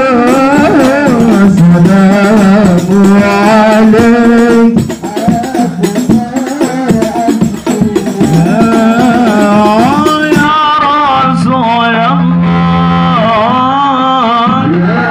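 Sholawat devotional singing by male voices through microphones, accompanied by a rebana frame-drum ensemble. About ten seconds in the drumming drops away and the voices carry on almost alone.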